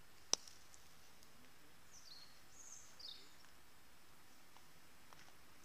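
A thrown Obut Match steel pétanque boule (75 mm, 700 g) striking with a single sharp metallic clack about a third of a second in. A bird chirps faintly a couple of seconds later.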